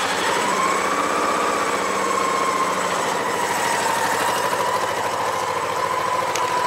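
Honda PC800's liquid-cooled V-twin engine idling steadily just after being started, with a thin high whine over it that wavers a little. It is running so the freshly refilled cooling system can be burped and the new coolant hose checked for leaks.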